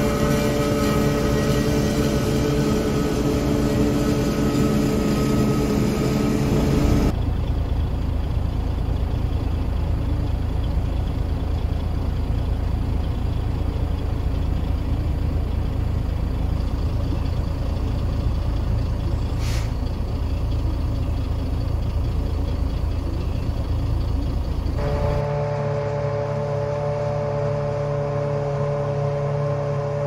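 Self-propelled forage harvester running steadily with a droning whine while chopping corn silage into a trailer. After about seven seconds this gives way to the low, toneless rumble of a truck cab riding across the field, with one sharp click partway through. About five seconds before the end a harvester's steady drone returns.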